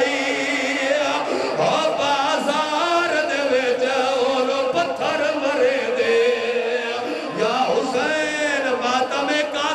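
A man chants a melodic lament into a loudspeaker while other men's voices wail and chant along with him, several voices overlapping.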